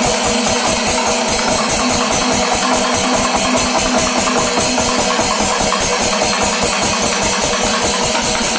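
Panchavadyam temple percussion ensemble playing loud and fast: timila and maddalam drums in a rapid, even beat under a bright wash of ilathalam cymbals, during the kalasham, the climactic closing passage of the second tempo stage.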